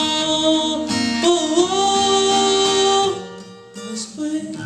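Live vocal and acoustic guitar performance of a slow pop ballad. The singer holds a long note that steps up in pitch about a second in and stops about three seconds in, leaving softer plucked guitar notes.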